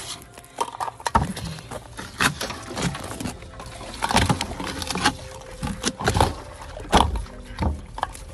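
Galvanized metal poultry waterer being handled and seated on its base pan in the snow: irregular knocks, clunks and scrapes.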